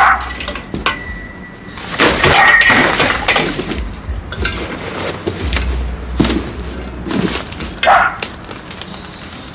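Metal garage-tent frame tubes clanking and clinking as they are handled and dropped onto a pile, with one tube ringing briefly about a second in and a dense clatter soon after.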